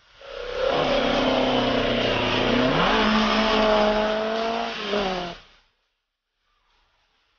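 Sports-racing car engine running at a steady speed, revved up to a higher speed about three seconds in, then cut off abruptly about five and a half seconds in.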